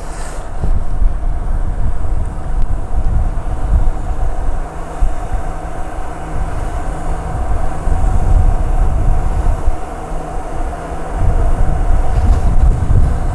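Wind gusting over the microphone, a heavy rumble that swells and drops, over a steady mechanical hum.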